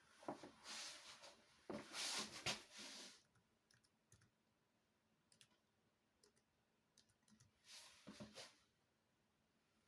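Faint typing on a Dell Latitude E6420 laptop keyboard: a burst of rapid key clicks lasting about three seconds, a few scattered single taps, then a second short burst near the end.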